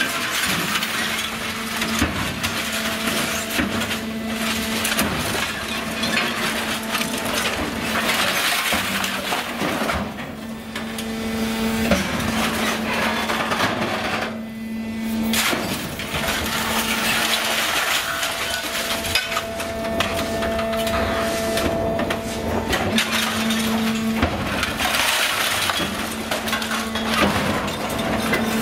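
Mixed steel scrap clattering and crunching as it is fed to, pressed and cut in a Kajman Automatic 700 hydraulic scrap shear, with sharp metallic bangs now and then. A steady machine hum runs underneath.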